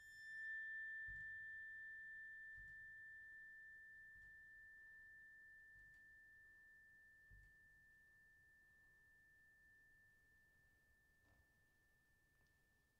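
A single high, nearly pure metallic tone from a tuned metal percussion instrument, sounded once and left to ring, fading slowly away.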